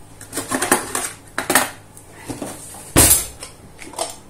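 Metal spoon, whisk and glass kitchenware clinking and knocking: a handful of sharp clinks and taps, with one heavier knock about three seconds in.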